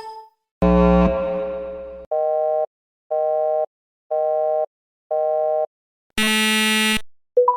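A string of synthetic sound effects. A buzzy tone fades out over about a second and a half. Then four short two-tone beeps, one a second, like a telephone busy signal, are followed by a harsh buzzer lasting under a second.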